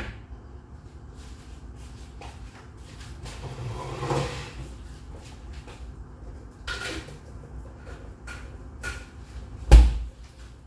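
Kitchen handling noises: scattered light knocks and clicks over a steady low hum, with one sharp, loud thud near the end, like a cupboard door or drawer being shut.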